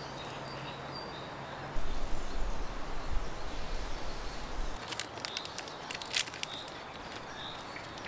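Outdoor ambience: a low rumble of wind on the microphone from about two seconds in to about five, with faint bird chirps and a few short rustles or clicks.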